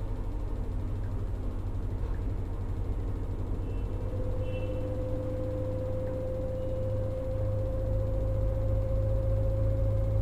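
LG direct-drive front-load washing machine (FHT1208SWL) running, with a steady low hum and a thin motor whine that begins about four seconds in and rises slowly in pitch as the drum spins up.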